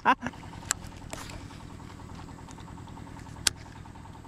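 Faint steady low outdoor background noise, with a single sharp click about three and a half seconds in.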